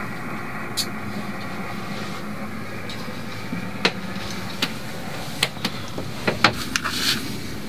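A steady mechanical hum with a faint low drone, broken by scattered short clicks and knocks.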